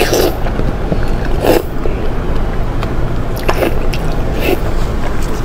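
Close-miked eating sounds: biting and chewing of soft, wet food, with a few sharp smacking crackles about a second and a half, three and a half, and four and a half seconds in, over a steady low background rumble.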